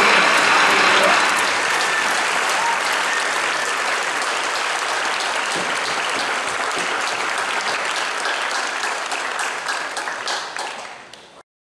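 Theatre audience applauding, the clapping slowly thinning out and fading, then cutting off abruptly shortly before the end.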